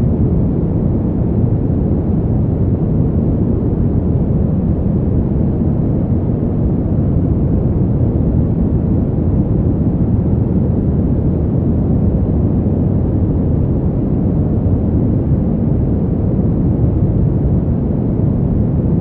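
Soft, steady white noise for baby sleep: a deep, even hiss weighted toward the low end, with no breaks or changes.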